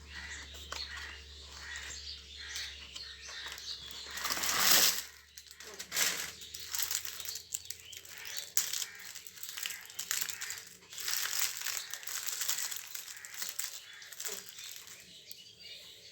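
Chocolate wrapper being crinkled and handled in irregular rustling bursts, loudest about five seconds in.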